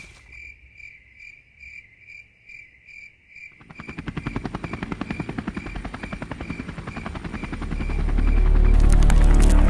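A cricket chirping in even pulses, about three a second. About three and a half seconds in, a helicopter's rapidly beating rotor comes in and grows louder into a heavy low rumble.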